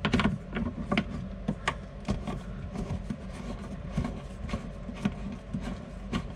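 Scattered light clicks and knocks as hand-tightened plastic supply-line nuts are unscrewed from the faucet tailpieces and the water lines are handled.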